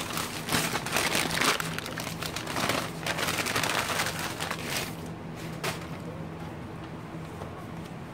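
Brown kraft packing paper crumpling and rustling as it is handled and pushed aside, dying down after about five seconds. A couple of light taps follow near the end.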